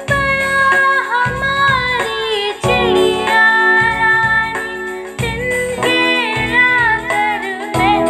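A female voice singing a Hindi children's poem to music with a steady beat.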